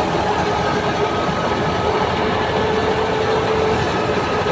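Tractor-driven wheat thresher running steadily while being fed with wheat straw: a constant loud machine drone with a held whine over it.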